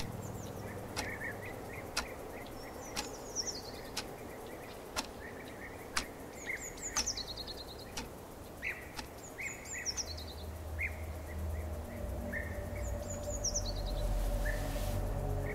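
A wall clock ticking once a second, with birds chirping outside. A low hum comes in about ten seconds in and grows slightly louder.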